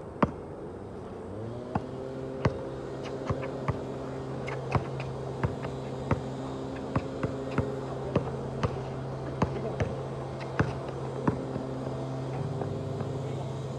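A basketball dribbled on an asphalt court: sharp bounces, irregular, about one to two a second. Under them, a steady motor drone starts about a second in and shifts slightly in pitch near the end.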